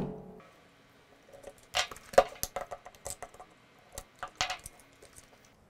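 Flathead screwdriver backing out the small screws of a RUPES polisher's front cap: a few light, irregular clicks and scrapes of metal on the screws and plastic housing.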